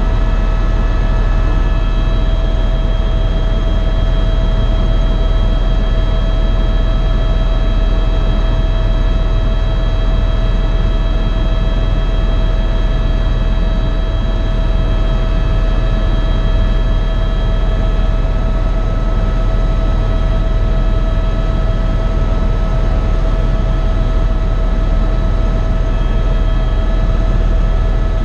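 Eurocopter EcoStar (EC130) helicopter in flight: steady, loud rotor and turbine noise with a steady high whine over it.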